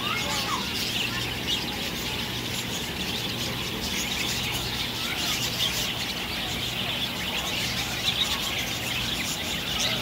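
Budgerigars chattering and chirping, a dense, continuous twitter, over a steady low hum.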